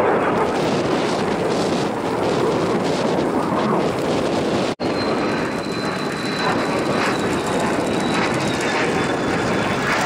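Mitsubishi F-2 fighter in flight, the steady rushing jet noise of its single F110 turbofan engine. The sound drops out for an instant about halfway through, and after that a faint high whine, slowly falling in pitch, sits over the jet noise.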